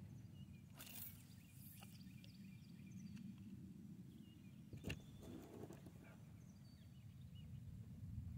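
Near silence outdoors: a faint steady low rumble with a few faint bird chirps, a brief rustle about a second in and a single sharp click about five seconds in.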